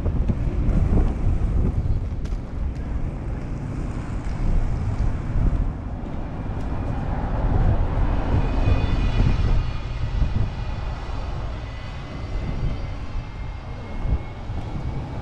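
Inline skates rolling on asphalt, with wind rushing over the microphone, a steady low rumble. From about halfway, a high whine with a slowly falling pitch comes from a bus passing alongside.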